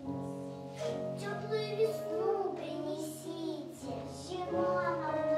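Children singing a song together over a steady instrumental accompaniment of held chords, which change about four seconds in.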